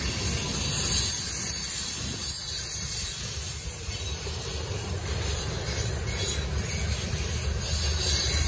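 Freight cars rolling past close by: steady rumble of steel wheels on rail with a high hiss, growing a little louder near the end.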